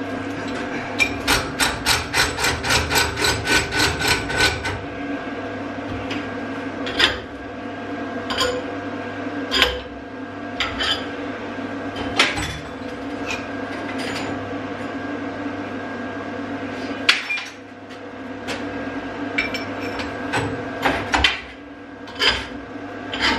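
Hammer striking steel: a fast, even run of blows, about five a second for several seconds, then scattered single knocks and clanks of metal on a steel workbench, over a steady hum.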